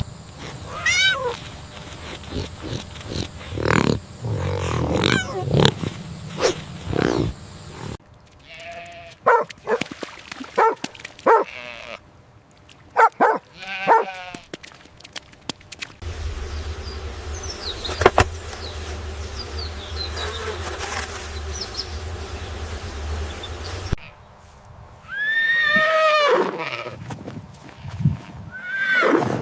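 Animal calls, bleat-like cries with pitch that arches and falls, heard across a run of short clips whose background changes abruptly every few seconds.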